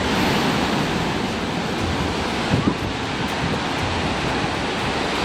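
Waterfall rushing close by: a steady, even noise of falling water.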